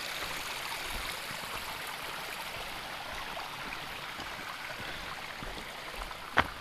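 Steady rush of running stream water. There is one sharp click near the end.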